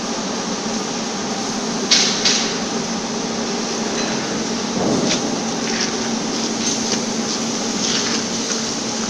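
Steady machinery hum and hiss on a fabrication shop floor, with a constant low drone, broken by two sharp clicks close together about two seconds in and a few fainter knocks later.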